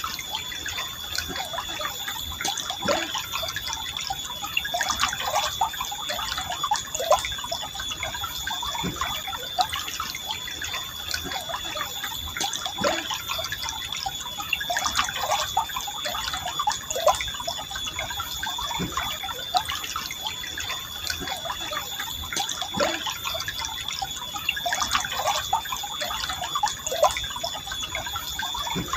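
Forest stream flowing gently, the water trickling with frequent small plops and gurgles scattered through it. A thin, steady high-pitched tone sits above the water.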